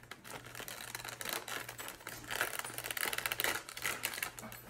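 Stiff clear plastic toy packaging crinkling and crackling as it is handled and flexed, getting louder about halfway through.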